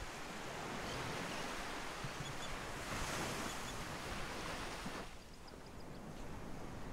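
Ocean surf breaking on a sandy beach: a steady wash that swells about three seconds in and eases off shortly after five seconds.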